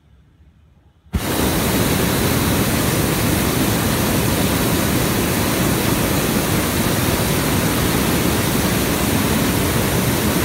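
Hot air balloon's propane burner firing in one long blast: it switches on suddenly about a second in and runs as a loud, steady rushing noise.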